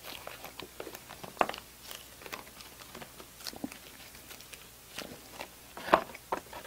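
Mouth sounds of eating and swallowing, mixed with scattered crinkles and clicks from an empty paper milk carton squeezed in a gloved hand. A sharper click comes about six seconds in.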